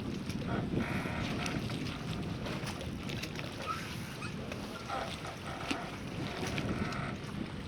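Port ambience: a steady low rumble, with scattered small knocks and clicks over it.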